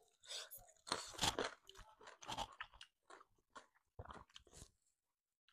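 Close chewing and crunching of food picked up by clip-on microphones: short, irregular crunches and wet mouth sounds, clustered about a second in and again around four seconds.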